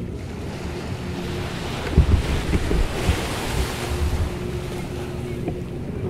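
Atlantic surf on a sand-and-pebble beach: a wave builds and breaks about two seconds in, then washes up and fades. Wind gusts buffet the microphone as the wave breaks.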